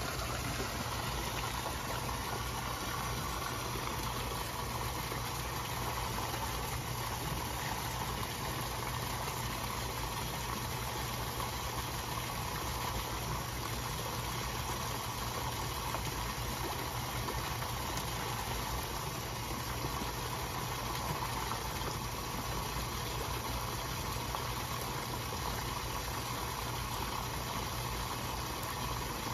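Koi splashing and slurping at the pond surface as they feed on floating pellets, over a steady low hum.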